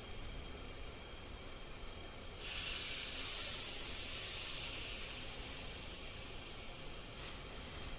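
A steady, high-pitched hiss that comes in suddenly about two and a half seconds in and fades out near the end, over a faint low background noise.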